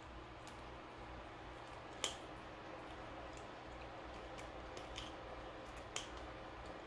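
A few short, sharp clicks of a crab pick against crab shell as meat is worked out of a leg, the loudest about two seconds in and another near six seconds, over a low steady hum.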